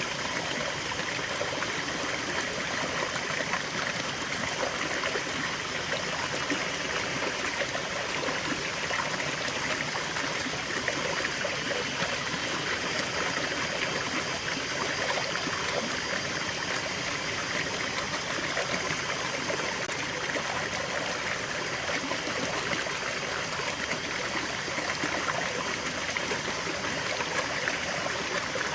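Small stream of water trickling and gurgling over stones, a steady babble that does not change.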